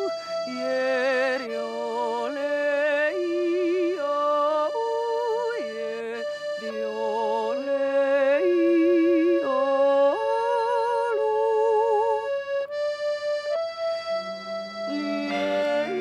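A woman's wordless yodel, the voice leaping back and forth between low and high notes with vibrato, over long held chords on a Hohner Concerto accordion.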